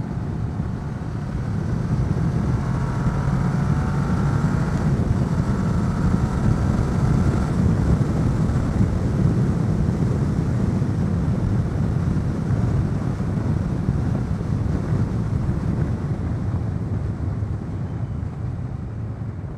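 Kawasaki ER-6n's 650cc parallel-twin engine running under way on the road, its note picking up about two seconds in and then holding steady, with wind rushing over an unfiltered microphone.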